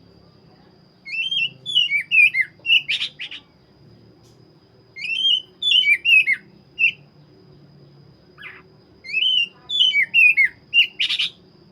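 Oriental magpie-robin (black-breasted kacer) singing: three phrases of quick whistled notes that sweep up and down, each about two seconds long and a few seconds apart. The first and last phrases end with a harsh, scratchy note.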